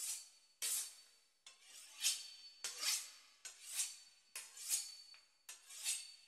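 A knife sawing through the crisp pastry crust of a beef Wellington: a steady run of short scraping strokes, about one a second.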